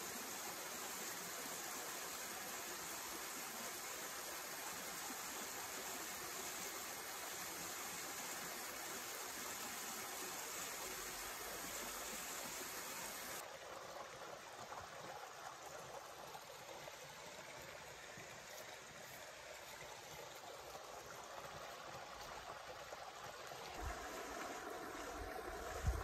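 A small mountain stream running over rocks and little cascades: a steady rush of water, duller from about halfway through. Near the end, low rumbles of wind hit the microphone.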